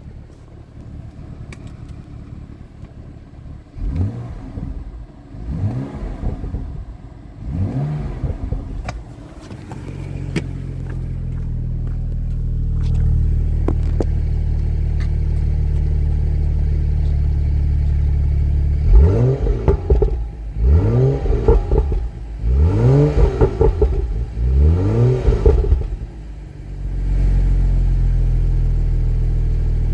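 BMW M235i xDrive engine in Sport mode, blipped three times, then held at a steady drone. Later it is revved in four sharper blips about two seconds apart before settling back to a steady drone.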